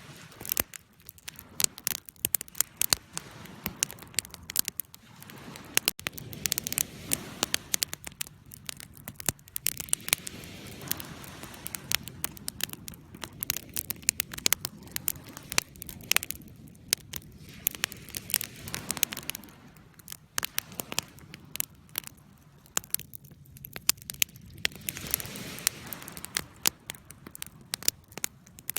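Campfire burning with frequent sharp crackles and pops from the wood over a low, steady flame rumble.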